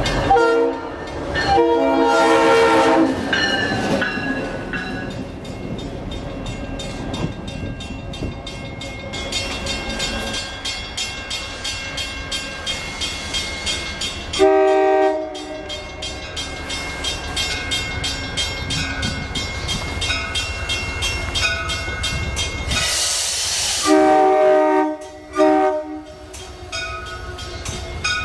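Amtrak passenger train's horn blowing a chord in several blasts: two near the start, a short one midway and two more near the end. Between the blasts the train runs past with a steady rumble and wheel clatter, and a brief hiss comes just before the last blasts.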